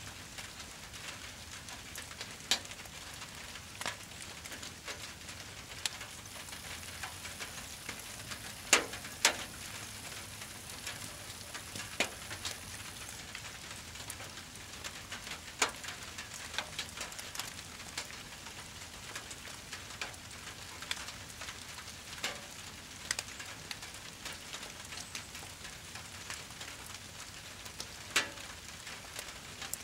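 Brush pile fire crackling, with scattered sharp pops, over a steady hiss of falling rain. The loudest snaps are a pair about nine seconds in.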